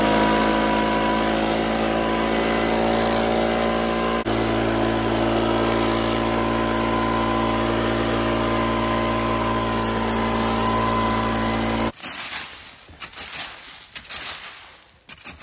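Leaf blower running steadily at full power, blowing leaves off a dirt trail; its note shifts once about four seconds in, and it cuts off abruptly about twelve seconds in, leaving a few irregular noises.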